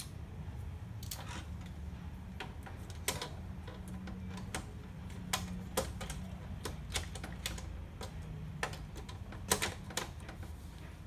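Irregular sharp plastic clicks and taps from hands working in the open scanner housing of an HP Color LaserJet Pro MFP M277fw, handling its flat ribbon cable, over a steady low hum. The loudest clicks come about three seconds in, near the middle and near the end.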